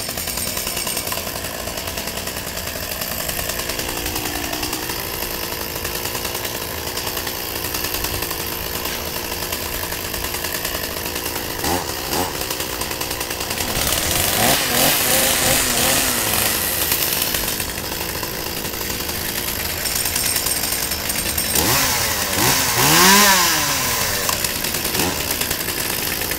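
Petrol chainsaws running steadily at idle and revved up and down in short bursts several times, the loudest rev a little past the middle and another near the end.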